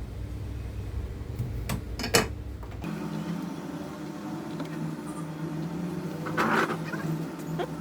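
Small metal tools clicking and tapping against a laptop motherboard during soldering work, with a short scrape about six and a half seconds in. Under it runs a steady electric hum that changes abruptly to a higher pitch about three seconds in.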